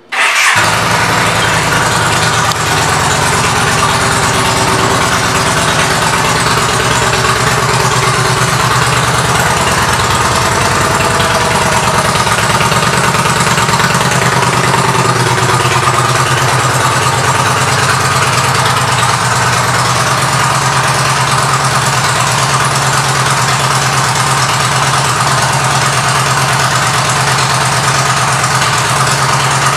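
Yamaha V Star 950's air-cooled V-twin with an aftermarket Vance & Hines exhaust, coming in suddenly right at the start and then idling steadily with an even beat.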